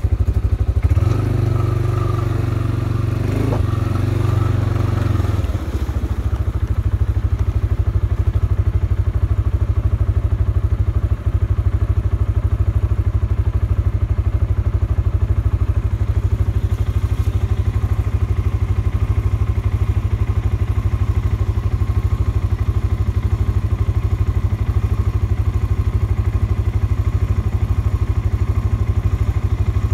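CFMoto CForce ATV engine running steadily while the quad is ridden off-road, with a louder, fuller engine note from about one to five seconds in before it settles back. Light clattering runs along with it.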